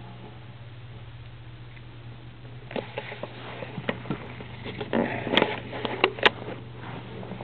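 Handling noise from a camera being lowered to the carpet: scattered knocks and rustles starting about a third of the way in, with two sharp clicks near the end, over a steady low hum.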